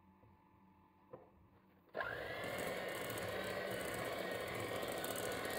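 Electric hand mixer switched on about two seconds in, its motor spinning up with a brief rising whine and then running steadily as the beaters whip butter and boiled condensed milk into a cream in a glass bowl. A soft knock about a second in comes before it starts.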